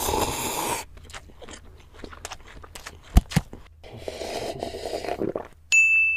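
Cartoon sound effects: a short burst of noise, scattered clicks with two sharp knocks about three seconds in, a second stretch of noise, then a bright ding that rings on near the end.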